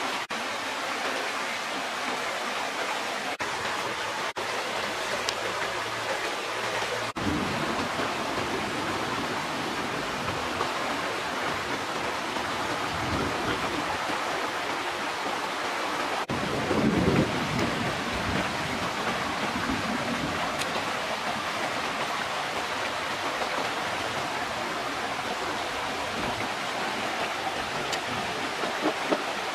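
Steady rush of flowing stream water over a rocky bed, with a few soft knocks and rustles of handling, the loudest about seventeen seconds in.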